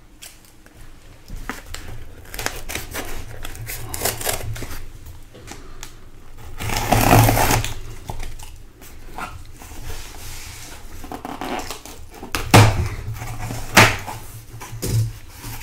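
Cardboard case of sealed hobby card boxes being opened and unpacked: scattered rustling, scraping and light knocks, a longer stretch of rustling about seven seconds in, and two sharp knocks near the end.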